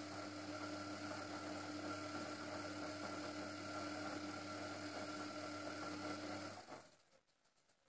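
Gorenje WA 50050 front-loading washing machine tumbling its wet wash load: a steady motor hum with the swish of laundry and suds in the drum. It stops fairly quickly about seven seconds in as the drum comes to rest.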